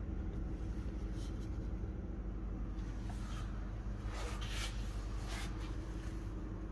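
Steady low mechanical hum, with a few brief rustles about halfway through.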